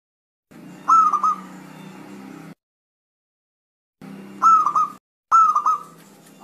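Zebra dove (perkutut) cooing three short phrases, each a higher first note followed by a quick run of two or three notes: its typical 'ter-kuk-kuk' song. The recording cuts to dead silence between stretches.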